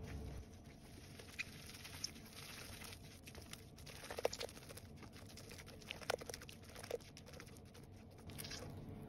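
Silicone spatula stirring a thick, crumbly cake batter of buttery crumbs, yogurt and egg in a glass bowl: soft, quiet scraping and stirring, with a few light ticks scattered through.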